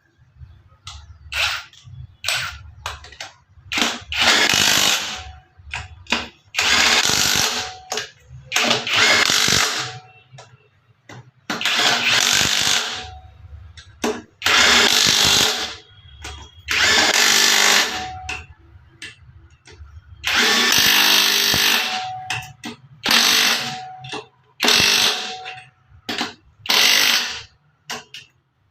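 A power tool run in repeated short bursts, about a dozen times, each lasting half a second to two seconds, over a steady low hum.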